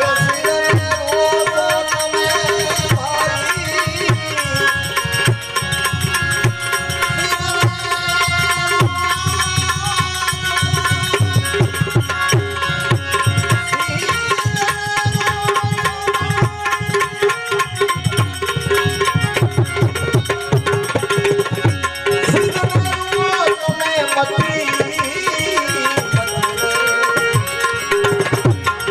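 Instrumental interlude of a Gujarati bhajan: hand drums play a fast, steady rhythm under held melody lines from a sustained melodic instrument.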